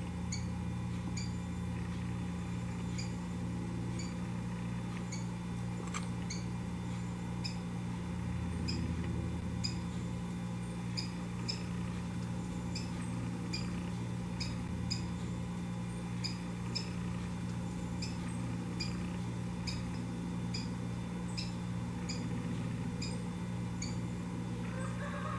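Rufous-collared sparrow (tico-tico) calling: short, high, sharp call notes repeated every second or so, over a steady low hum.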